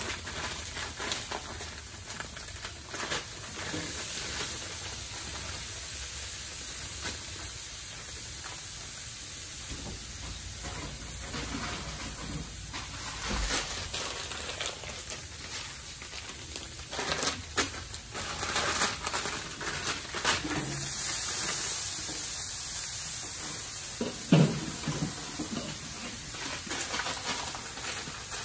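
Crumbled cauliflower sizzling and steaming on a hot Blackstone flat-top griddle, a steady frying hiss. A few short knocks and scrapes sound over it, the sharpest near the end.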